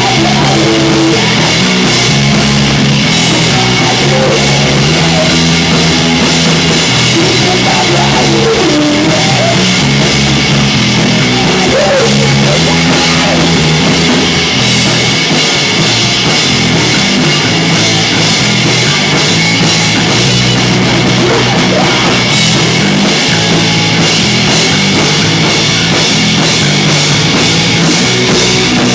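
Live punk rock band playing loud, full-band rock: drum kit, with bass and guitar riffing over it.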